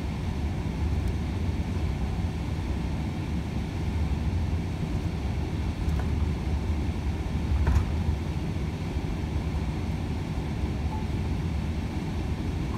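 Steady low drone inside the cab of a Volvo FH 500 truck cruising on a motorway: its diesel engine and tyre and road noise. A couple of faint clicks about six and eight seconds in.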